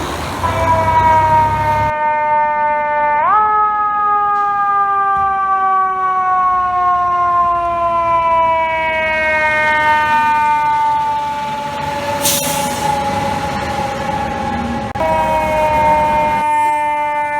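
Fire truck siren winding: it revs up sharply about three seconds in, then slowly falls in pitch as it coasts down, and steps up a little again near the end. A short hiss sounds about twelve seconds in.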